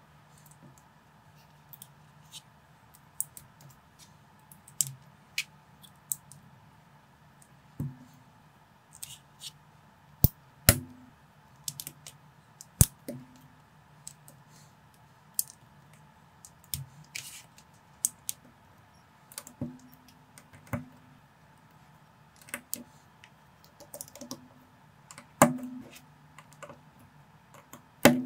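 Plastic building bricks clicking and snapping as they are pressed together and handled, in irregular sharp clicks every second or so over a faint steady hum.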